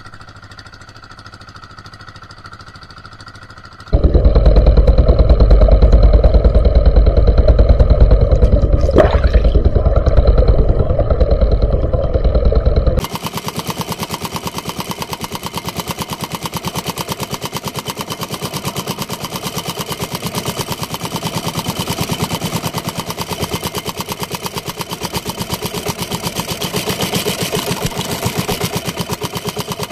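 Small engine of a motorized outrigger boat running under way, a steady hum that gives way to a loud low rumble about four seconds in. After a cut about thirteen seconds in, it runs as a rapid, even putter.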